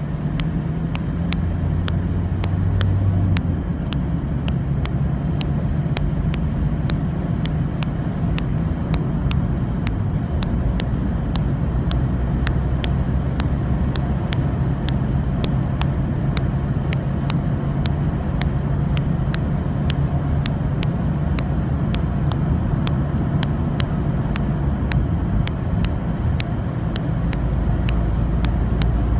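Car cabin noise while driving at a steady speed on an open road: a low engine drone with tyre and road rumble. A faint tick repeats about twice a second throughout.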